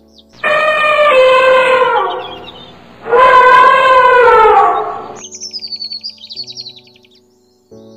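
An elephant trumpeting twice: two loud calls of about two seconds each, the second starting about three seconds in, each sliding down in pitch at its end. Background music with bird chirps runs underneath.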